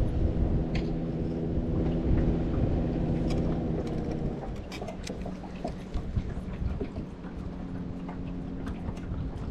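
Bow-mounted electric trolling motor humming steadily. It drops away about four or five seconds in and starts again at a lower pitch near the end, over a low wind rumble on the microphone and a few light clicks.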